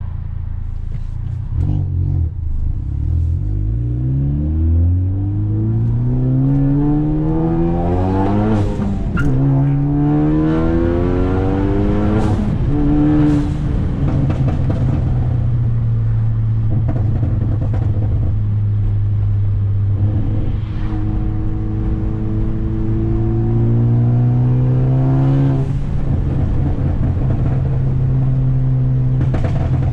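Ford Focus ST's turbocharged engine with a catless downpipe and loud exhaust, revs climbing hard twice in the first dozen seconds, then holding a steady drone. Sharp exhaust pops and crackles come when the throttle is lifted, several times, from a tune set up for pops and crackles.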